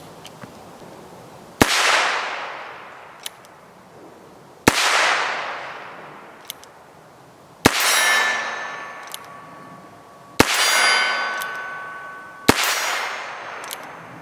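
Heritage Rough Rider .22 LR single-action revolver fired five times, roughly three seconds apart. Each sharp shot is followed by a long fading ring, and a small click comes between some of the shots as the hammer is cocked.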